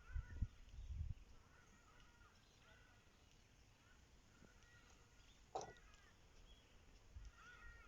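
Birds calling faintly in the distance: many short, arched calls repeated throughout. There are low bumps in the first second and a single sharp click a little past halfway.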